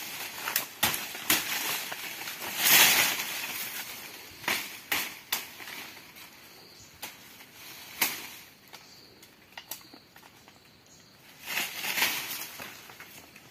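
Dry twigs snapping and leaves rustling, with scattered sharp cracks and two louder rustling swishes, one about three seconds in and one near the end.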